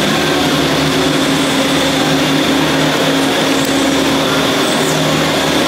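Aerial tramway running: a steady mechanical hum from the drive machinery and haul ropes, with a constant low drone and a faint high whine over a noisy rumble.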